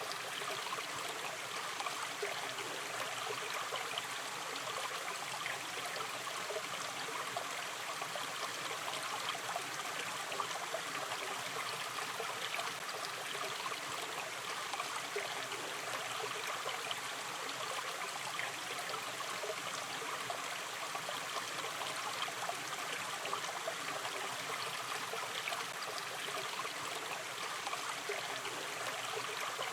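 A shallow river stream running gently and steadily, its water trickling and babbling over stones.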